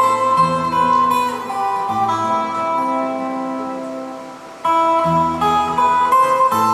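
Instrumental music with no singing: plucked, guitar-like accompaniment and bass under a melody of held notes. It fades softer about four seconds in, then comes back louder just before five seconds.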